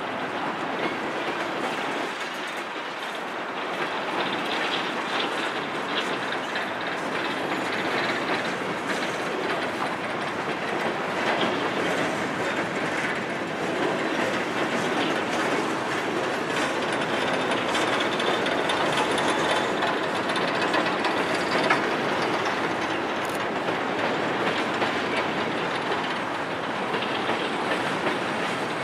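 Empty coal hopper cars of a long freight train rolling past: a steady rolling rattle of steel wheels on rail, with faint clicks scattered through it.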